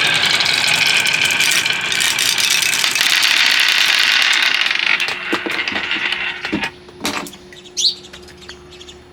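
Marbles rolling and clattering down a marble run track, a dense continuous rattle for about five seconds that then thins out to scattered clicks and knocks.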